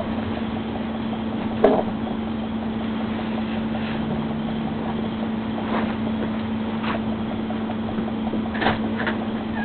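A steady hum with a few scattered clicks and knocks, one sharper knock about a second and a half in.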